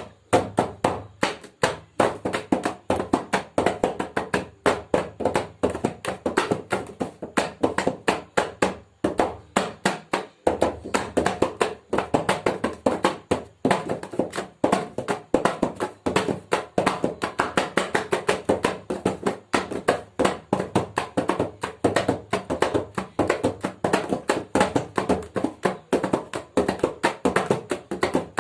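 Mridang, a double-headed Indian hand drum, struck with the hands in a fast, continuous run of ringing beats.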